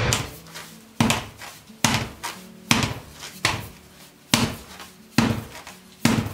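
Wooden-spoked carriage wheel with a freshly fitted hard rubber tire, bounced again and again on a concrete floor: eight thuds, a little more than one a second, each with a short ring.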